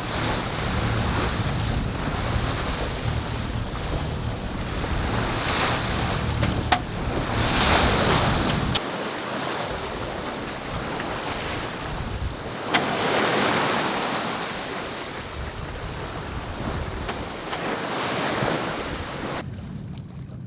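Wind buffeting the microphone over the rush of waves along a sailing yacht's hull at sea, surging louder as swells pass, about 8 and 13 seconds in.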